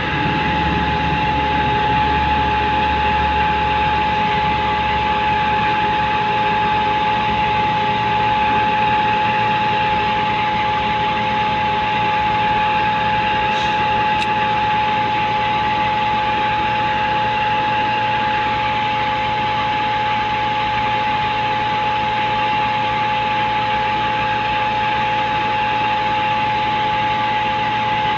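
Heavy diesel truck machinery running steadily, with a constant high-pitched whine over the engine noise.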